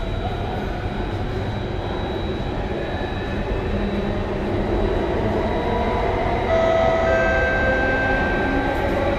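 SMRT Circle Line C830 metro train running, heard from inside the car: a steady rumble of wheels and running noise. Several steady whining tones join about six and a half seconds in.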